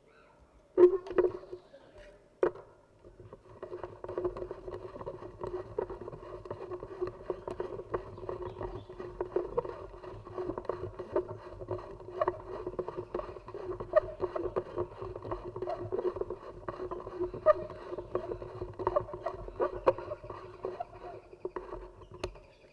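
Thin bamboo strips creaking and crackling in dense small ticks as they are wound and pressed tight into a coiled bamboo cup form. A sharp knock comes about a second in.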